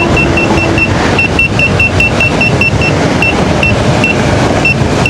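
Begode Master Pro electric unicycle's speed alarm beeping, short high beeps about four a second that thin out after about three seconds, warning that the wheel is at its set 48 mph tilt-back speed. Underneath is a steady rush of wind noise from riding fast.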